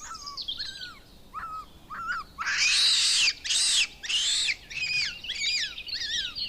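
Wild animal calls in a jungle: many short whistled chirps gliding up and down in pitch, with three harsh screeching calls in quick succession about two and a half seconds in.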